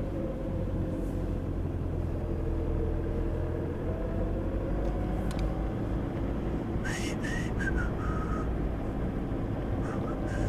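A four-wheel drive running slowly along a soft sandy track on tyres let down to about 10 psi: a steady engine and tyre rumble whose pitch drifts gently. Around seven seconds in, a short high chirping sound cuts in briefly.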